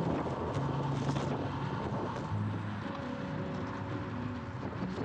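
Wind rushing over the microphone of a camera riding along on a road bike, with a low steady hum under it that shifts in pitch a few times.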